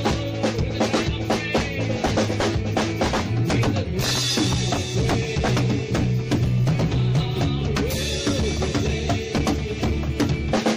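Band music with an acoustic drum kit driving it: kick and snare strike a steady beat over pitched accompaniment. Cymbals ring and wash over the beat from about four seconds in to about eight seconds in.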